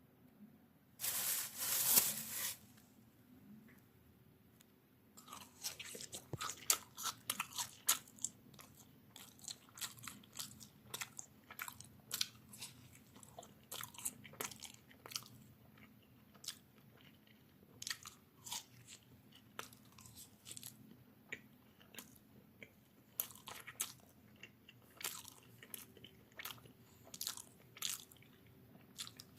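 Close-up chewing of a marshmallow: a long run of irregular sharp clicks and crunches from the mouth. A loud, brief burst of noise comes about a second in.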